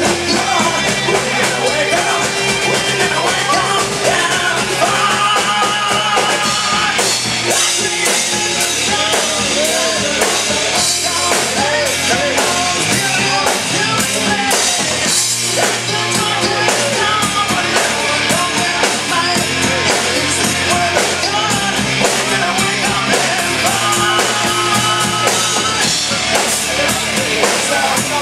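Loud rock music with a full drum kit and what sounds like singing.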